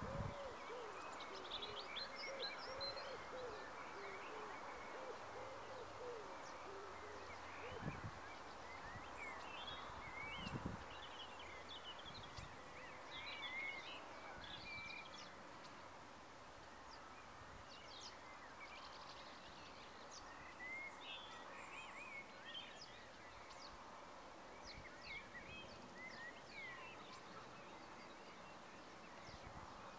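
Faint outdoor evening bird chorus: many small birds chirping and twittering throughout, with some lower calls in the first few seconds. A few brief low thumps come at the start and again about 8 and 11 seconds in.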